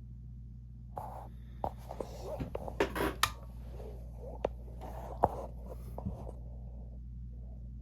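Irregular scraping and rubbing handling noises with several sharp clicks, over a steady low hum.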